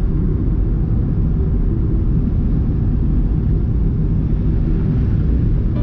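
Steady low rumble of road noise inside the cabin of a moving car.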